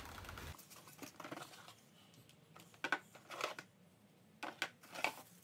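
Cardboard packaging and hard plastic parts of a facial steamer being handled while unpacked: light rustling with scattered clicks and knocks, a few sharper ones in the second half.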